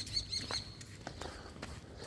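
A small bird chirping a quick run of short, high notes in the first half second, with light footsteps ticking through the rest.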